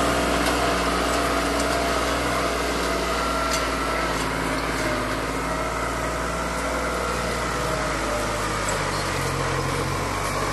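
New Holland 6510 4×4 tractor's diesel engine running steadily under load as it pulls a two-bottom mouldboard plough through straw-covered soil: a fierce sound, with the engine not bogging down.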